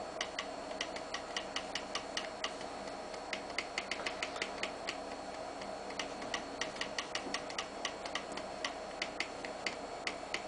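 Floppy-drive stepper motors of a homemade three-axis CNC pen plotter stepping as it plots: runs of sharp ticks, several a second, broken by short pauses.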